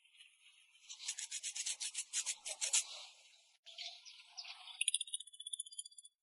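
Quick back-and-forth abrasive rubbing strokes, as in hand sanding or filing a workpiece, about seven a second. They stop abruptly a little past halfway, then resume, with faster, higher strokes near the end.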